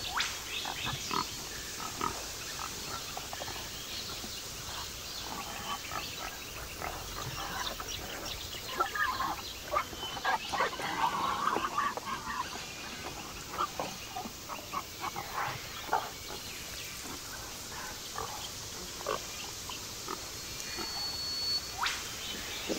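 Wild pigs grunting and squealing in short, scattered calls, busiest through the middle.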